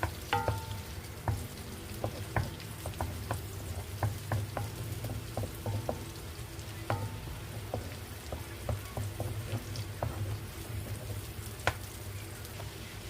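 Garlic frying in butter in a pan: a steady sizzle, with a spatula tapping and scraping the pan in irregular clicks, a couple of which ring briefly like struck metal. A low steady hum runs underneath.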